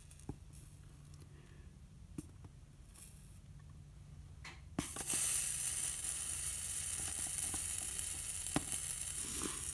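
Flux sizzling under a soldering iron as solder melts along the seam between a brass vent cap and a stained glass lampshade. A few faint clicks come first, then the sizzle starts suddenly about halfway through and holds steady.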